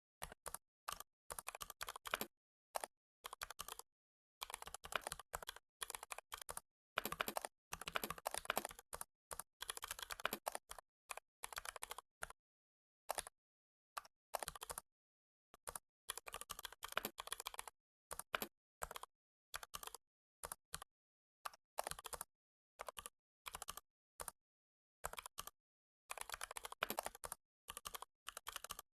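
Computer keyboard typing: runs of rapid keystrokes broken by short gaps of dead silence.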